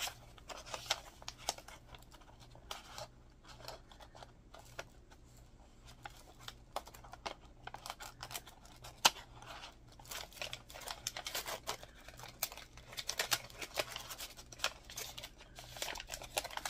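Paper and vellum packaging rustling and crinkling in the hands as scrapbook sticker packs are sorted, with scattered light clicks and one sharp tap about nine seconds in.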